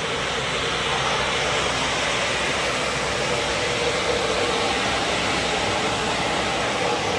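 Single-shaft multi-blade circular rip saw (MKS-1000) sawing a dry spruce cant into boards as it feeds through: a steady, dense sawing noise with a held mid-pitched tone, a little louder from about a second in.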